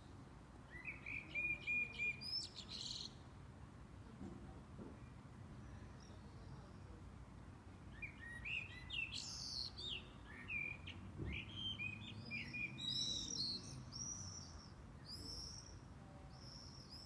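Small birds chirping and singing: a short run of quick repeated chirps about a second in, then a longer, busier stretch of varied twittering calls from about halfway through.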